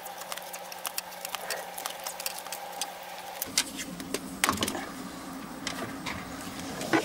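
Tape being pulled off a roll and wound around a bundle of wires, giving a run of small crackles and clicks, over a faint steady hum.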